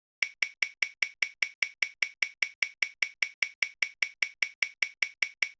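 Spinning prize-wheel app's ticking sound effect: identical sharp clicks, evenly spaced at about five a second, as the wheel turns.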